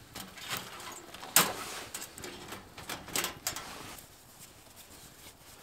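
Sharp metallic clicks and knocks from the door of a small steel wood-burning tent stove being handled and shut. The loudest knock comes about a second and a half in, with a second group of clicks about three seconds in.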